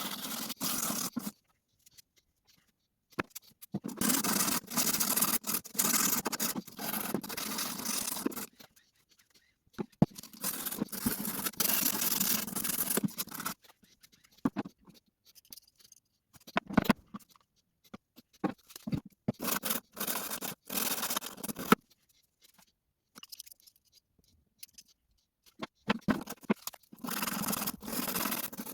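Hand scrubbing and scraping on the old garden shears during their rust and dirt clean-up, in long bursts of a few seconds each with pauses, with scattered clicks and knocks of the tool and metal in between.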